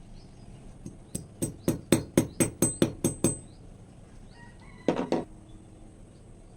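A quick run of about ten sharp knocks, about four a second, then a brief cluster of knocks about five seconds in: hand-tool strikes on a hard workpiece during the knife's restoration.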